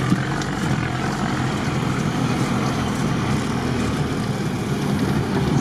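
Off-road 4x4's engine running steadily while the vehicle drives along a dirt forest track, with the noise of the ride.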